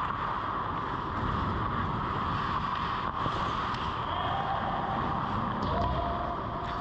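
Steady indoor ice-rink ambience picked up by a camera in the goal net: a constant ventilation-like hum with the scrape and shuffle of skates on ice, and a faint knock about three seconds in.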